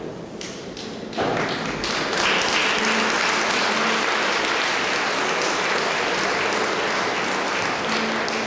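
Concert-hall audience applauding. A few scattered claps come first, then the applause swells suddenly to full, dense clapping about a second in and stays steady.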